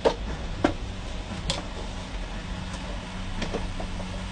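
Three sharp clicks in the first second and a half, a few fainter ones later, over a steady low hum.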